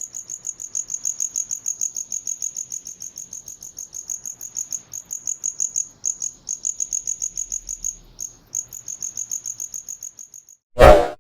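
Cricket chirping in a steady run of short high-pitched pulses, about five a second, with a couple of brief breaks. The chirping stops shortly before the end, and a short loud burst of noise follows.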